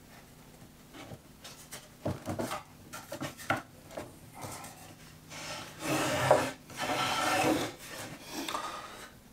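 Pine board being pressed and worked down onto wooden dowels in a dry fit: wood scraping and rubbing on wood with scattered knocks. It grows louder after about five seconds, with one sharp knock about six seconds in.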